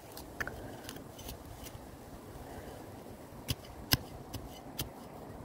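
Small hand trowel stabbing and scraping into grass turf and soil, digging to expose a buried sprinkler head: a scattered series of sharp clicks and crunches, the loudest about four seconds in.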